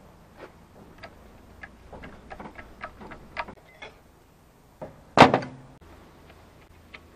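Light, irregular metal clicks and taps of hand tools and outboard lower-unit parts being handled, then a single sharp knock about five seconds in.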